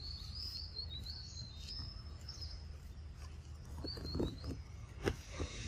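Small birds chirping over a steady low rumble, with a few short knocks near the end, the sharpest about five seconds in.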